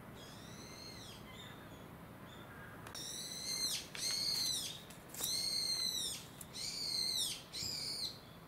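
A bird calling: one faint call near the start, then from about three seconds in a run of five loud, high calls, each arching and falling in pitch.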